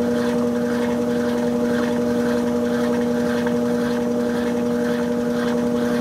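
Brastemp 16 kg BWK16 washing machine in its spin cycle: a steady motor hum with a constant whine, the drum spinning at a constant speed.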